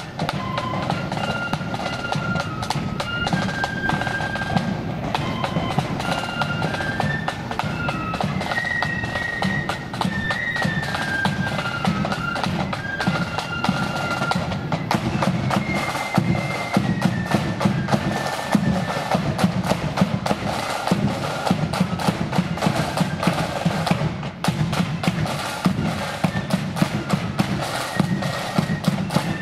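A marching flute band playing: a high flute melody over rapid snare-drum rolls and bass-drum beats. The flute tune thins out after about sixteen seconds while the drums carry on.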